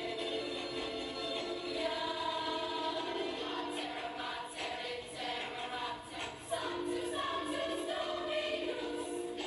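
Young women's gospel choir singing held, changing chords, heard as a video played back through room speakers and picked up by a camera in the audience, so it sounds thin with little bass.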